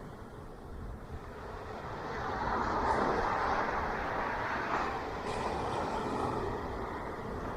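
Ocean surf on a beach: a wave builds about two seconds in and washes for several seconds as a steady rush of water before easing off.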